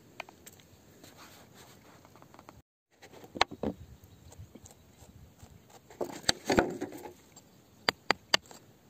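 Gritty scraping and crunching of crumbly rock, then sharp metal-on-stone clicks from a steel rod striking the rock near the end.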